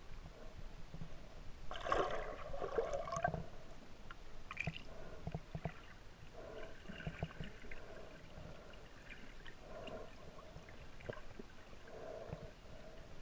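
Muffled underwater ambience picked up by a submerged camera: gurgling water noise with scattered clicks and knocks, and a louder swell about two seconds in.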